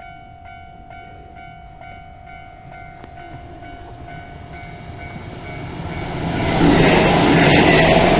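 Japanese level-crossing bell ringing in an even beat about twice a second. A Keihan electric train comes up and passes, its noise rising from about six seconds in until it drowns the bell and is loudest near the end.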